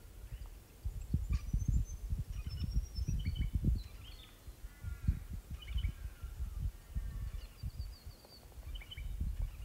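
Birds calling outdoors: short chirps and quick downward-sweeping whistled notes, scattered through, with a thin high trill near the end, over low gusts of wind buffeting the microphone.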